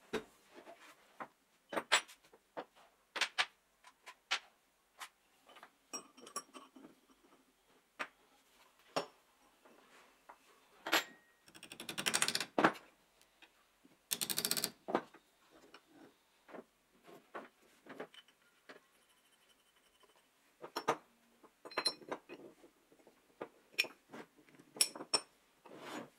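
Small metal parts of a cut-off saw's vise and base being handled and fitted together on a wooden workbench: irregular clinks, taps and knocks, with two longer, noisier stretches of about a second each roughly twelve and fourteen seconds in.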